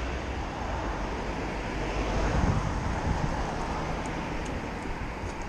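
Road traffic noise from the street alongside, mixed with wind rumbling on the microphone; the noise swells about two and a half seconds in.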